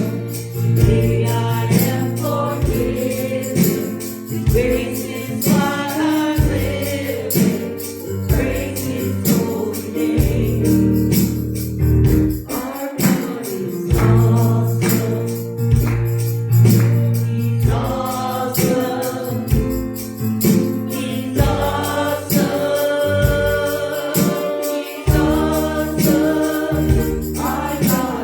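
Live gospel worship music: voices singing over sustained bass notes, with percussion keeping a steady beat.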